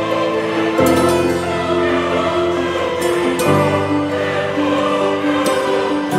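Choral music: a choir singing held chords, which change about a second in and again about halfway through.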